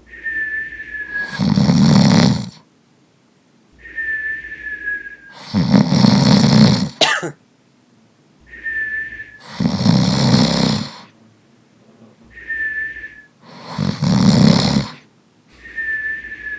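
A person snoring loudly, four rough snores about four seconds apart. Before each snore comes a thin, slightly falling whistling tone on the breath.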